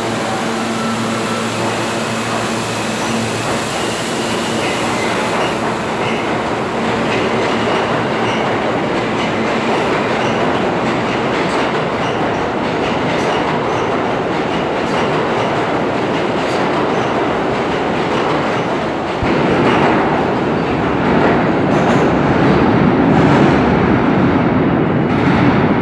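New York City Subway R160 train pulling out of the station, its wheels clattering over the rail joints as the cars run past, with a steady pitched hum in the first few seconds. The rumble grows louder about three-quarters of the way through.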